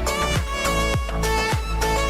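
Background music with a steady beat of about two kick-drum hits a second under a sustained melody.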